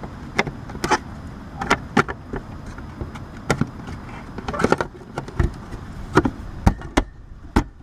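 A series of irregular sharp clicks and knocks, some close together, over a low steady hum.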